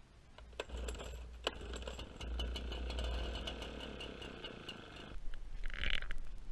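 Gas backpack leaf blower engine running at idle with a steady low rumble and fast even ticking, cutting off abruptly about five seconds in.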